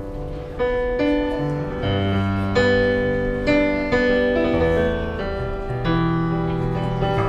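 Digital piano played in slow, sustained chords over low bass notes, a new chord struck about once a second.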